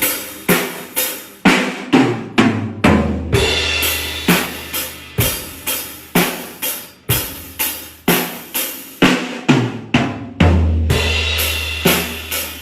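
A drum kit being played in a steady beat of about two hits a second, with bass drum, snare and cymbals. A deep tone is held under the beat twice, for a second or two each time.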